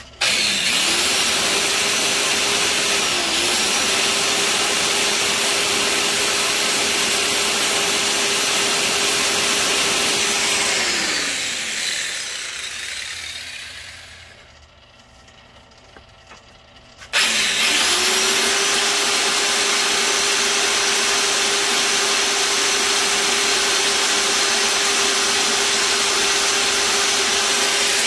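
Motor-driven crankshaft polisher running an abrasive belt on the journals of a camshaft turning in a lathe. It spins up at once and runs with a steady hum and an even hiss. About 11 seconds in it winds down to a stop, falling in pitch, then starts again about 17 seconds in and runs steadily.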